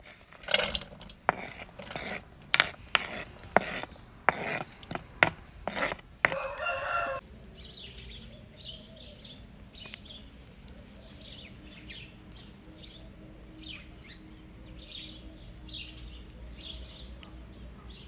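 A run of about ten sharp taps and knocks over the first six seconds, then a short rooster crow lasting about a second. After that, small birds chirp now and then over a faint steady background.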